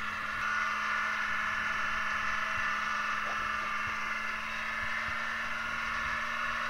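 UPS package truck's diesel engine racing at a steady high pitch in a diesel runaway, the engine overspeeding out of control.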